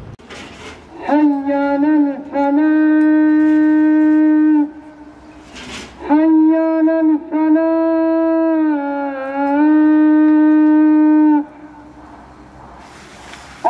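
A woodwind instrument playing a slow melody of long held notes with small bends and ornaments, in two long phrases with a pause between them. Short hisses come before each phrase.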